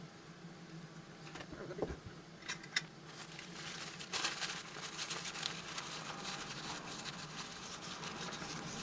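Paper towel rustling and crinkling in a hand, with a couple of light handling clicks about two and a half seconds in before the rustling picks up.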